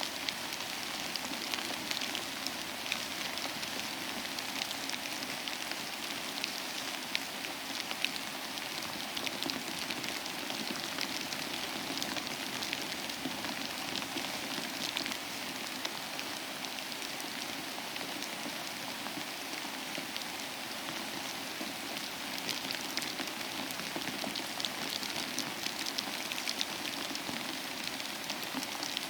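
Steady rain falling: an even hiss made up of countless small drop ticks, holding level throughout.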